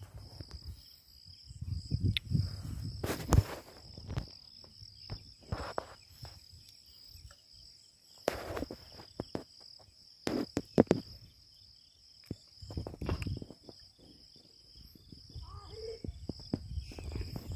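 An insect's steady, high-pitched, slightly pulsing trill, with irregular low rumbles of wind on the microphone and several sharp knocks from the camera being handled.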